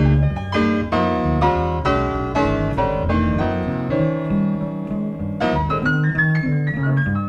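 Jazz piano playing chords and melody, struck about twice a second with a held chord midway, over low bass notes, from a cassette recording of an FM radio broadcast.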